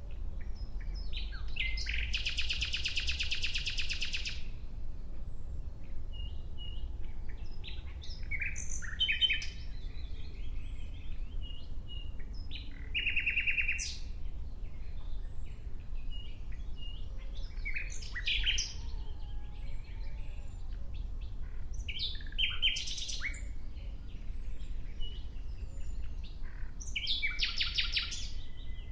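Nightingale singing in separate phrases a few seconds apart, mixing clear whistled notes with fast repeated-note rattling trills, the longest about two seconds in and another near the end. A steady low rumble runs underneath.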